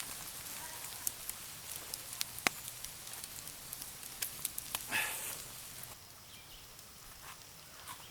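Bluegill frying in hot oil: a steady sizzle with scattered sharp pops and crackles, quieter from about six seconds in.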